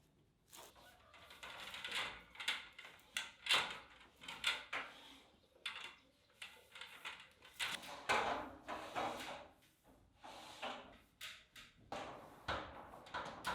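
Irregular scraping, rubbing and knocking of a plumbing pipe being handled and fitted into place.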